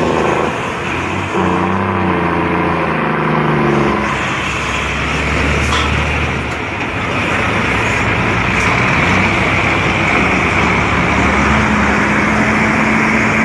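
Road vehicle engine running at speed with heavy road and wind noise. The engine note rises and falls over the first few seconds, then a steady note climbs slowly near the end.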